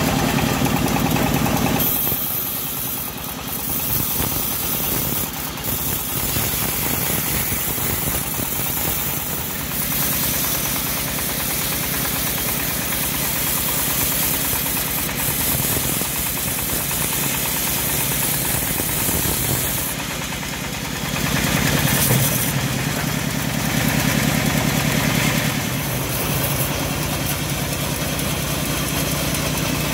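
Stationary engine driving a homemade band sawmill, running steadily with the saw blade going, with a louder stretch a little after twenty seconds in.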